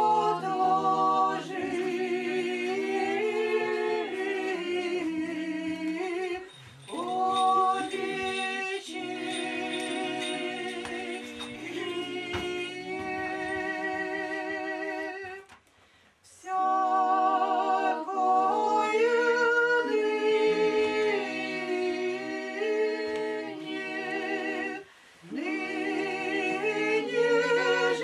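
Orthodox church choir singing liturgical chant a cappella, several voices together in sustained phrases with a wavering vibrato. The phrases break off a few times, with a brief near-silent pause about sixteen seconds in.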